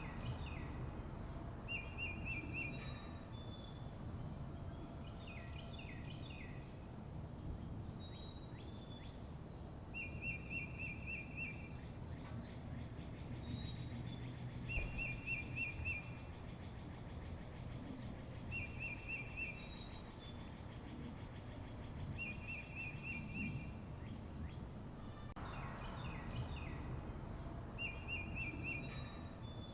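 Birds calling: a short, rapid trill repeats about every four seconds, with pairs of higher, downward-slurred whistles between, over a faint low steady background noise.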